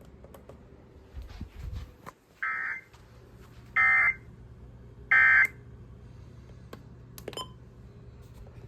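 NOAA Weather Radio SAME end-of-message signal from a weather radio receiver: three short buzzy data bursts about a second and a quarter apart, the first quieter than the other two. They mark the end of the monthly test alert.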